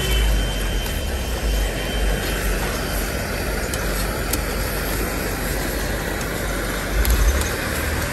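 Egg bhurji sizzling in a steel pan over a gas burner, with a metal spatula scraping and tapping against the pan a few times. A steady low rumble runs underneath.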